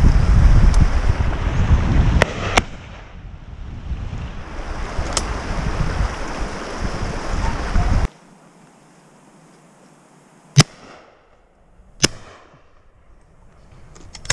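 Wind buffeting the microphone, with a few distant shotgun shots. Then, near the end, two close shotgun shots about a second and a half apart, each with a short echoing tail.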